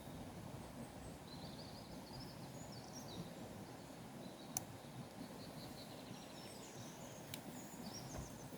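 Faint outdoor ambience: a steady low rush with small birds chirping in short high trills, and two sharp clicks, one about halfway through and one near the end.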